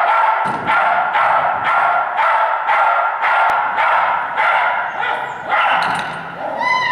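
Dog barking over and over, about two barks a second, ending on a short rising yelp.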